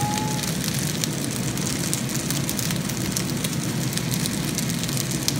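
Fried rice sizzling in a hot frying pan, a steady crackling hiss.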